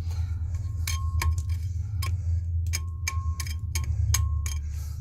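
A metal hand tool tapping and picking at an opal knobby in the rock face: about ten sharp clicks at uneven spacing, several with a short metallic ring. A steady low hum runs underneath.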